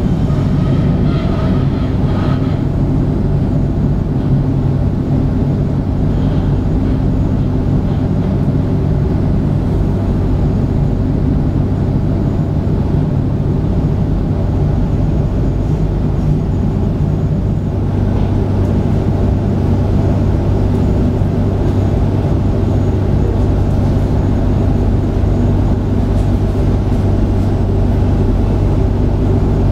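Electric suburban train running, heard from inside the carriage: a steady low hum and rumble from the wheels on the rails.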